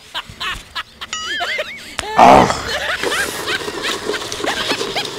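Edited-in comedy sound effects: a wobbling tone about a second in, a loud short burst just after two seconds, then a run of quick bending, squeaky notes.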